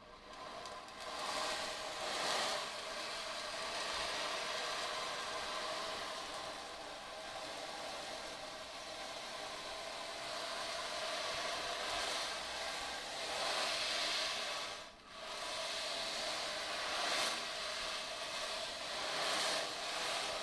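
Ocean drum, a frame drum filled with small metal beads, tilted so the beads roll across the drumhead in a continuous surf-like rush that swells and ebbs like breaking waves. The rush drops out briefly about fifteen seconds in, then builds again.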